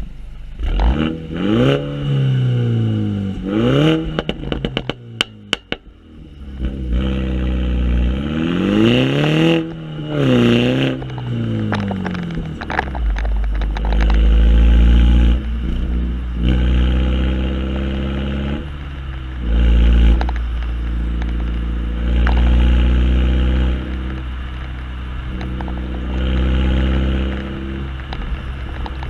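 MINI Cooper with a John Cooper Works exhaust revved twice while parked, the pitch sweeping up and falling back, then a quick run of sharp cracks as the revs drop. Two more revs follow near ten seconds, then the car pulls away and the exhaust settles into a low drone under way that swells and eases with the throttle.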